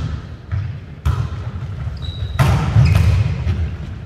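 Volleyball being struck and bouncing on a hardwood gym floor during a rally: about three sharp slaps, echoing in the hall, the loudest about two and a half seconds in. Short sneaker squeaks on the court between them.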